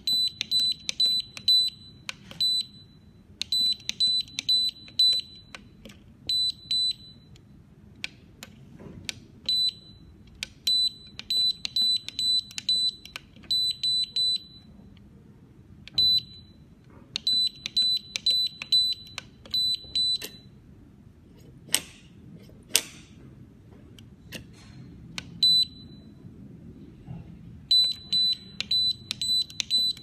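YOSEC electronic safe-lock keypad beeping as its keys are pressed: short, high-pitched beeps in runs of several, a few a second, with pauses between the runs while a master code is entered. Two sharp clicks come about two-thirds of the way through.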